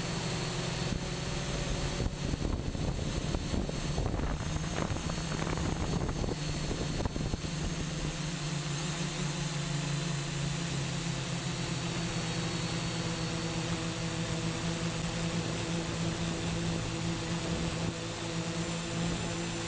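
TX8 octocopter's eight 880 kV 3DR brushless motors spinning 10x4.7 APC slow-fly propellers, a steady multi-rotor hum with a thin high whine above it, heard from the onboard camera. A rougher rushing noise runs over it from about two to eight seconds in, and the pitch of the hum shifts a little about twelve seconds in.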